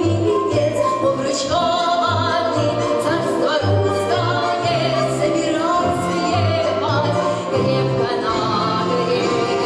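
A woman singing long, wordless-sounding notes with vibrato in a full classical voice, over an orchestra holding sustained low notes.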